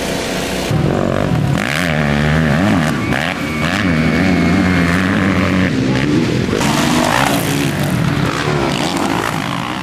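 Motocross bike engines revving hard and falling back as riders race over the track, the pitch swinging up and down with throttle and gear changes, in a string of short clips.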